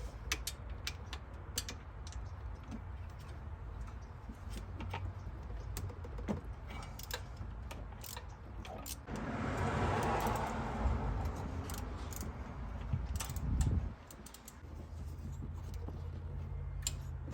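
Hand tools clicking and tapping on metal parts in a car's engine bay, many small irregular clicks and knocks, with a rushing noise for several seconds midway and a heavier knock near its end.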